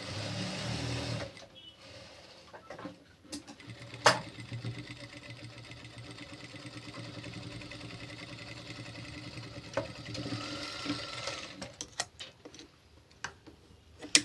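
Electric sewing machine stitching fabric, louder for the first second or so and then running more quietly and steadily. A few sharp clicks come in between, the loudest about four seconds in.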